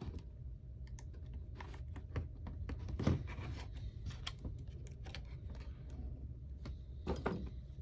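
Irregular small clicks and taps of phone parts and a tool being handled as the iPhone's ribbon-cable connectors are pressed into place on the board.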